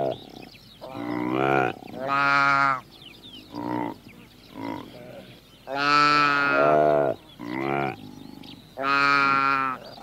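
Sheep bleating: a run of separate calls, each under a second long, some loud and some fainter.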